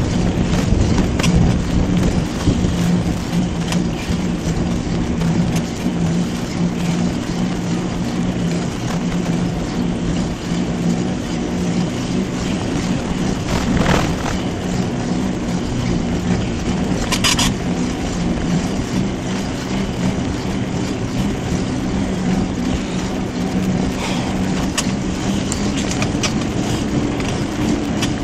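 Mountain bike rolling along a park path, heard from a camera on the bike: a steady rolling rush with a low hum, and scattered clicks and rattles as it goes over bumps.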